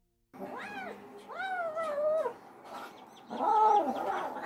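Young cat yowling while being held against a person's chest: three drawn-out, wavering calls, the second the longest and the last the loudest. This is the unwilling protest of a half-wild cat.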